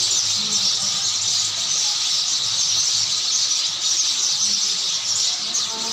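A flock of sparrows chirping together in a dense, unbroken chorus of high chirps.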